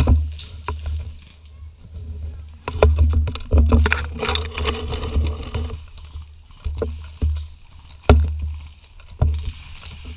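Uneven low rumbling and bumping, with scattered sharp clicks and knocks, and a brief voice calling out about four seconds in.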